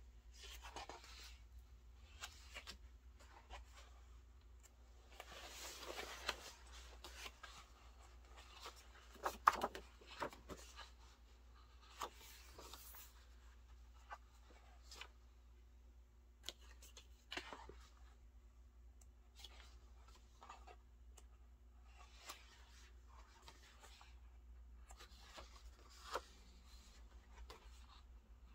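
Pages of a glossy photobook being turned by hand: soft paper rustles and swishes with short flicks as each page falls. The sounds are faint, with a longer brushing rustle about six seconds in and the sharpest flicks about nine to ten seconds in.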